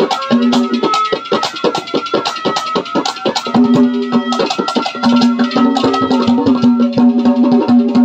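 Haryanvi ragni instrumental interlude: fast, dense hand-drumming over long held notes of a melody instrument.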